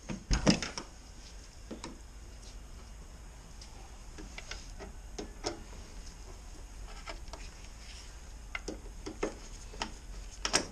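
Torx T30 screwdriver turning a screw inside a car door's handle housing: a few sharp clicks about half a second in, then sparse, irregular small clicks and light scraping of tool on metal and plastic.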